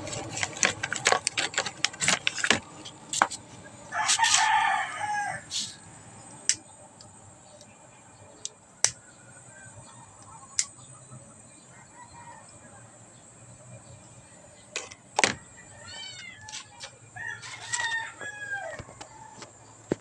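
A rooster crowing, once about four seconds in and again near the end. Under it runs a quick run of sharp clicks and knocks at the start, with single clicks scattered through the rest, as a kettle on a gas-tank burner is handled.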